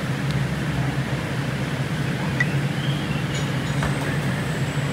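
Steady low hum and rumble of hawker centre background noise, with a few faint clinks in the middle.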